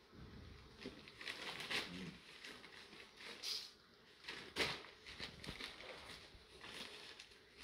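American Staffordshire terrier × American bulldog puppies play-wrestling on a concrete floor: faint, irregular scuffling of paws and bodies with soft rustles, and one sharper tap a little past halfway.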